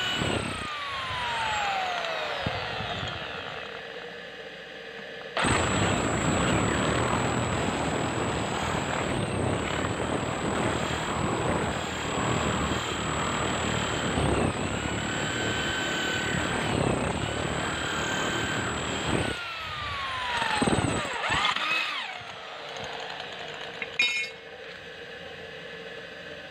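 Hand-held electric drill with a twist bit boring through steel angle iron. The motor winds down at the start, then about 14 seconds of steady drilling under load, with the bit cutting the steel. After that the motor runs down and revs briefly, and there is a sharp clack near the end.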